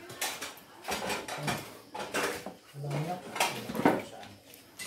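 Butchering at a wooden table: knife work and pieces of raw pork and pig skin being handled, making an irregular clatter, with voices in the background.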